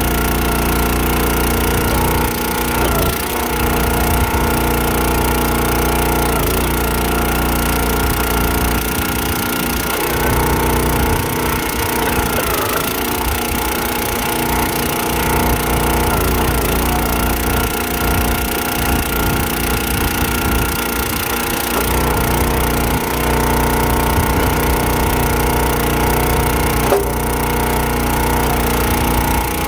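Small gas engine of a Countyline 25-ton hydraulic log splitter running steadily, its note shifting under load as the ram drives logs through the wedge, with wood splitting. A single sharp crack comes near the end.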